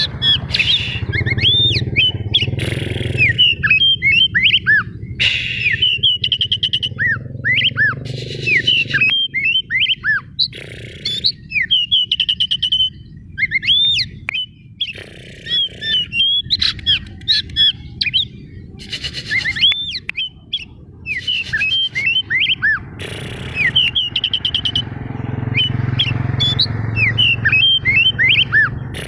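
Oriental magpie-robin (white-breasted kacer) singing a long, varied song of loud whistled notes, quick rising and falling sweeps and harsher scratchy notes, broken by short pauses, over a steady low rumble.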